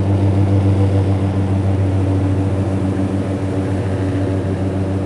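Snow chains on a moving car's tires making a steady low drone, like an airplane.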